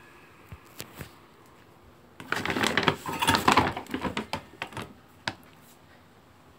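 Dry dog kibble rattling against a stainless steel bowl as the bowl is scooped through a large bag of food, with the bag rustling. A few clicks at first, then a dense rattle for about three seconds, and one last click near the end.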